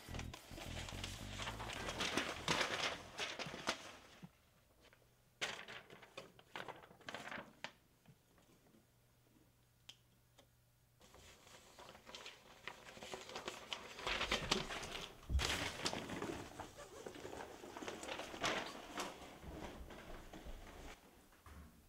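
Sheets of printed paper rustling and crinkling as they are handled, in bursts, with a few short knocks in between.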